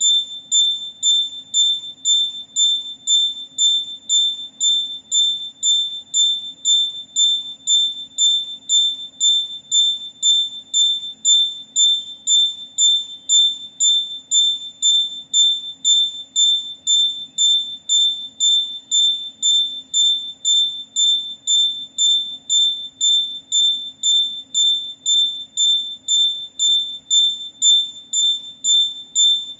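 Electronic buzzer beeping: one high, steady-pitched tone pulsing evenly about twice a second, with a faint low hum under it.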